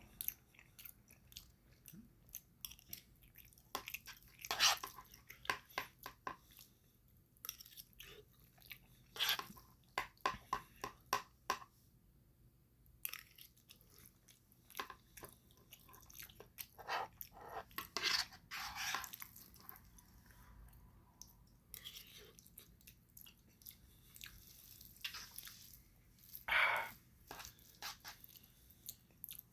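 A person chewing spicy instant noodles close to the microphone, with wet mouth clicks and smacks, sometimes in quick runs.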